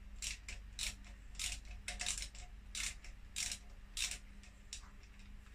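Hand socket ratchet clicking in short strokes, about two a second, as a 10 mm bolt is worked loose.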